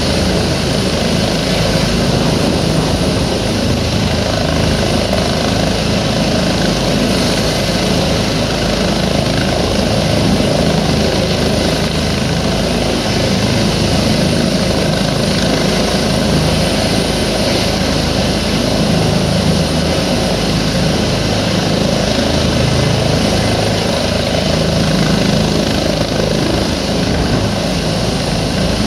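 Rescue helicopter hovering low, its rotor and engine running steadily and loudly without letting up.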